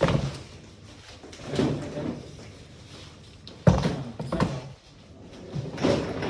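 A few knocks and thuds of doors and lids being opened and shut, the sharpest a little past halfway.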